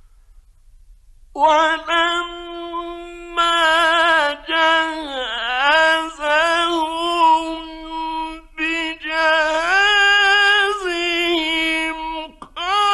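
A male Quran reciter's voice in melodic recitation, holding long ornamented notes that slide up and down. It comes in about a second and a half in and breaks briefly twice for breath.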